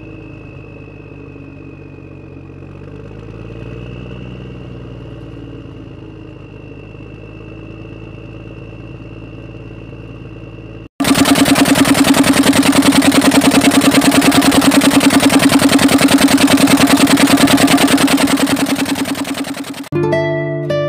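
Engine sound effects. For the first eleven seconds a quieter engine idles under a steady high whine, then a much louder engine with a fast, even pulsing runs for about nine seconds and cuts off just before the end.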